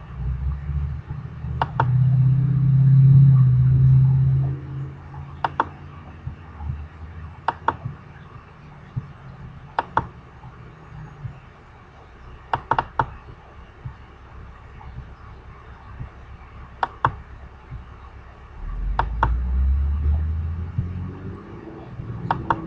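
Computer mouse clicking, single sharp clicks a few seconds apart with two close together partway through. A low rumble swells under them near the start and again near the end.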